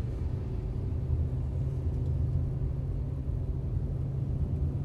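Steady low rumble of a car being driven, heard from inside the cabin: engine hum and road noise with no distinct events.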